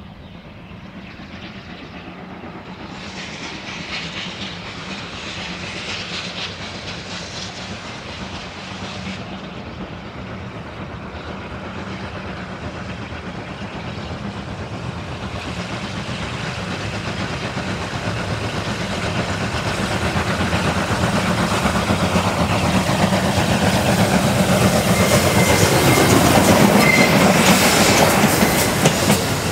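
Steam locomotive D51 200 hauling its train toward the microphone, growing steadily louder, with the clatter of wheels on the rails building up in the last ten seconds or so.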